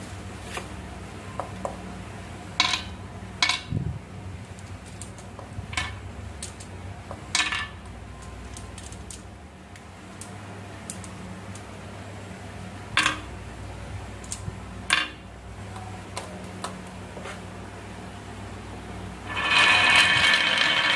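Marbles clicking and knocking against a marble run track: scattered sharp clicks every second or two over a low steady hum. Near the end a louder continuous rattling noise begins.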